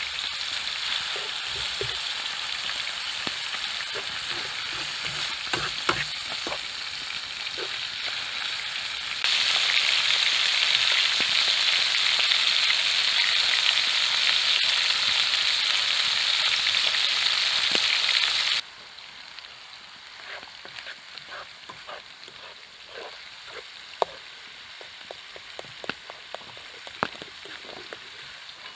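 Ground beef, bacon and burger patties sizzling in frying pans over a campfire, with a spatula stirring and scraping. The sizzle turns much louder about nine seconds in and drops off suddenly about two-thirds of the way through, leaving a quieter sizzle with scattered clicks and taps.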